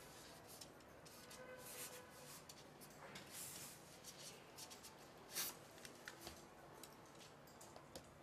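Faint small clicks and scrapes of a metal hex key turning the small screws on a carbon-fibre gimbal frame's tube clamps, tightening them down, with one louder click about five seconds in.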